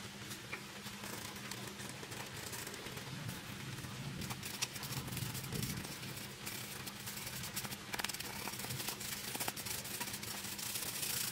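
Stiff-bristled brush scrubbing casting sand off a freshly sand-cast metal piece: a steady scratchy rasping with many small clicks and grains of sand pattering, denser from about halfway through, over a low steady hum.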